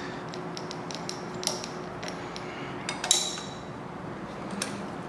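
Metal clicks and clinks of a steel harmonic balancer installer tool being unthreaded from the crankshaft snout and gripped with channel-lock pliers to free it where it sticks; the loudest is a ringing clank a little past three seconds in.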